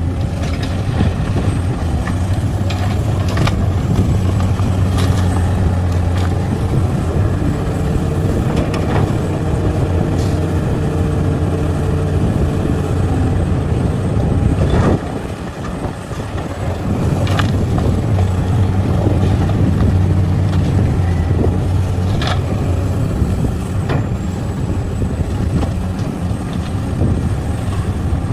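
Heavy diesel machinery running steadily, with scattered knocks and clanks. The engine note dips for a second or two about halfway through, then comes back up.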